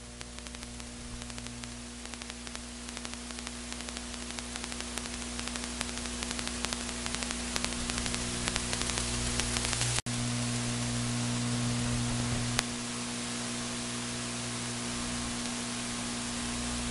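Electrical hum and static hiss with fine crackle, slowly growing louder. There is a brief dropout about ten seconds in, and a click a little later after which it steadies.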